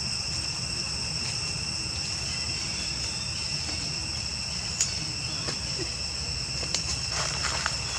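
Steady, shrill chorus of insects holding several high pitches, over a low rumble. A sharp click comes just before the middle, and a few clicks and rustles follow near the end.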